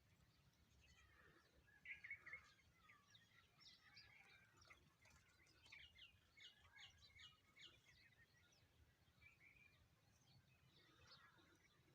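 Several wild birds chirping faintly, many short high calls overlapping, busiest in the middle, over a faint low background rumble.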